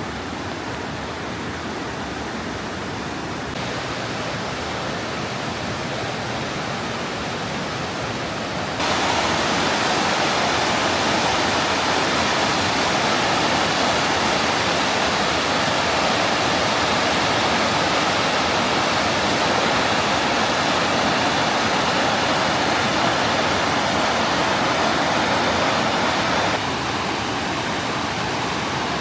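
Steady rush of falling and flowing water from a waterfall and creek. It jumps abruptly louder and brighter about nine seconds in, then drops back shortly before the end.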